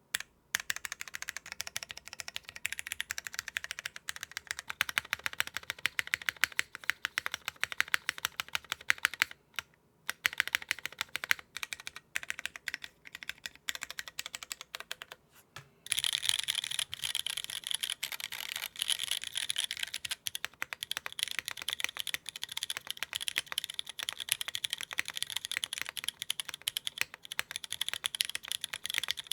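Fast, continuous typing on a Hiney Ladybird 60% top-mount mechanical keyboard with lubed Cherry MX2A Black linear switches, GMK keycaps, an aluminium plate and no foam: rapid clacking keystrokes with a short pause about a third of the way in, turning brighter and denser about halfway through. The unfoamed board has a resonance that the builder thinks force-break mods could cure.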